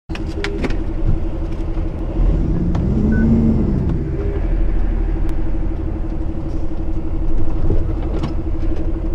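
DAF fire truck's diesel engine heard from inside the cab, running with a steady low rumble while the truck creeps along at low speed. About two seconds in, the engine note rises and falls once, and there are a few light clicks and knocks from the cab.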